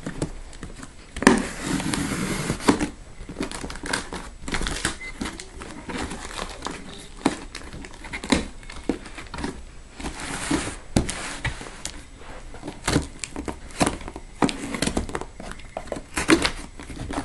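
A knife cutting through the packing tape along the seam of a cardboard shipping box, with scraping and tearing of tape and cardboard, loudest about a second in and again about ten seconds in, and many small clicks and knocks as the box is handled.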